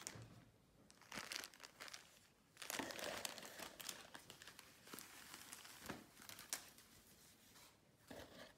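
Faint plastic garment packaging crinkling in short, scattered rustles as the cycling jersey is handled.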